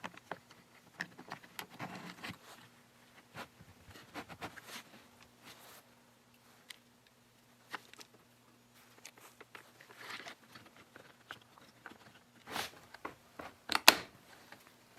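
Hands reassembling a chainsaw: scattered clicks, taps and light rattles of plastic and metal parts being handled and fitted, with two louder sharp clicks near the end.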